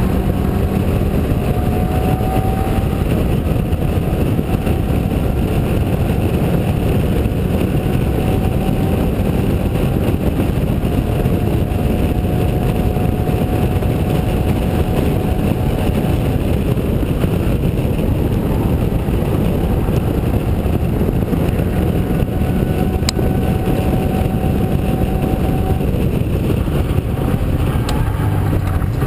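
Locost race car's engine running hard at racing revs, heard on board in the open cockpit over a steady rush of wind and road noise; its note rises slowly several times as it pulls through the gears.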